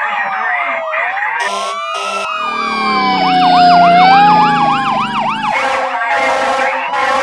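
Several emergency-vehicle sirens sounding together: slow wails sliding down and up, with a fast yelping warble for a couple of seconds in the middle. A few short, sharp blasts cut in near the start and again near the end.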